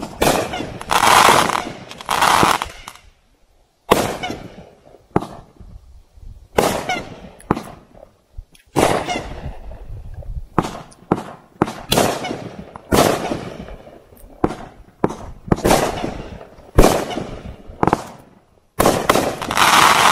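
A 500-gram "Ridiculously Amazing" consumer firework cake firing its aerial shots, about one a second. Each shot is a sharp bang followed by a fading crackle, with longer bursts of crackling about a second in and again near the end.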